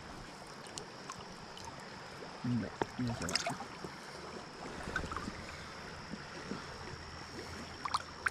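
Steady rush of river water around a chinook salmon held in the current for revival, with two brief low voice sounds about two and a half to three seconds in.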